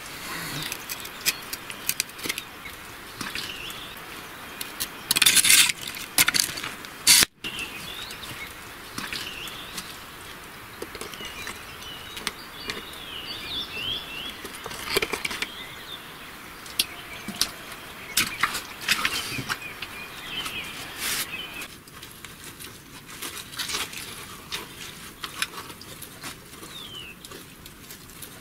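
Hands and boots working in wet mud and muddy water: squelching, splashing and scraping, with many sharp clicks and knocks that are loudest in the first quarter. Birds chirp briefly now and then.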